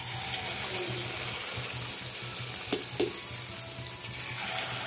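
Spoonfuls of idli-batter bonda mix deep-frying in hot oil in an aluminium kadai: a steady sizzle that starts suddenly as the batter hits the oil. Two light knocks come a little before three seconds in.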